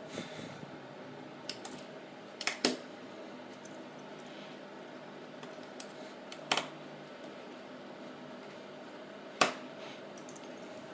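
Small tools and parts clicking and tapping on a hard work surface while an iPod Touch is being put back together: about seven sharp taps, the loudest a little under three seconds in and again near the end, over a steady low hum.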